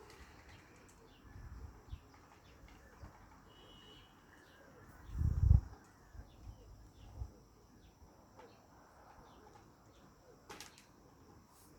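Outdoor ambience: a steady high insect hum with a few faint bird chirps and small ticks, and a low thump about halfway through.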